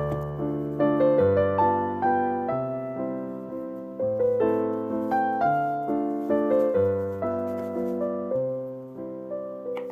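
Background piano music: a melody of struck, decaying notes over low bass notes that change about every second or so.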